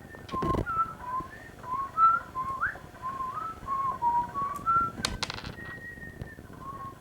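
A person whistling a tune, a string of single notes with slides between them. A couple of handling knocks and clicks come about half a second in and about five seconds in.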